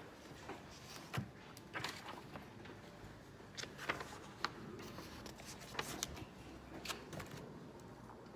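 A page of a thick paper workbook turned by hand about halfway through, giving a few sharp paper rustles and flicks. Scattered light taps and scratches of a pen on the page come before and after.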